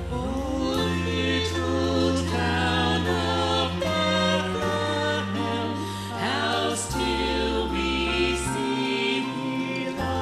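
Mixed vocal group singing in harmony over instrumental accompaniment, with steady held bass notes underneath.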